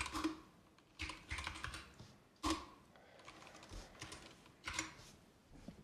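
Typing on a computer keyboard, in short runs of keystrokes with pauses between.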